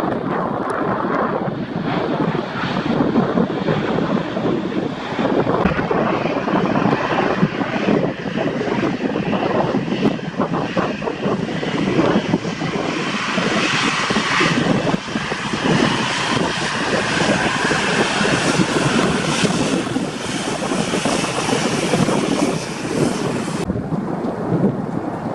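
Jet airliner passing close overhead, a steady loud engine noise that builds in its upper range through the middle, mixed with gusting wind on the microphone. A faint falling whine runs through the second half, and the high end drops away suddenly near the end.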